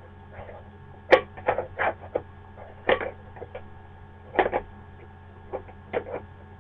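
Irregular short scrapes and taps of a hand handling a plastic container lid, about a dozen spread unevenly, over a steady low electrical hum.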